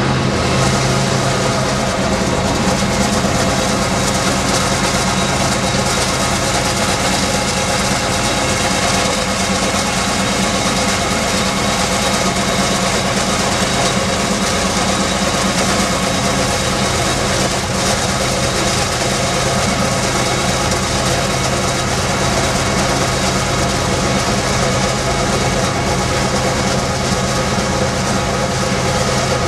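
Steady engine drone with road and wind noise, heard from inside a car driving alongside a diesel freight train at a constant pace.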